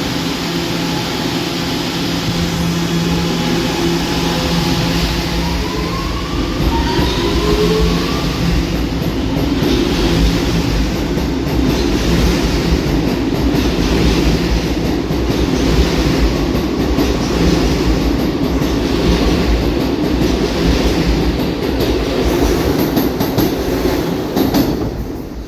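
R211A subway train pulling out of a station: a steady electric hum, a motor whine gliding up in pitch about six seconds in as it gathers speed, then a growing rumble of wheels on rail with repeated clicks as the cars pass. The sound drops off suddenly near the end.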